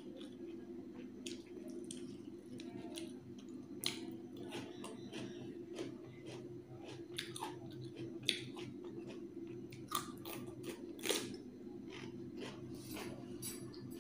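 Close-up chewing and wet mouth sounds of someone eating rice and thin chicken curry by hand, with scattered small clicks and ticks, over a steady low hum.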